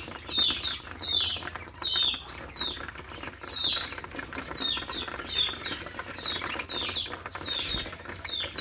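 Budgerigar chirping: a run of short, high chirps that fall in pitch, about two a second.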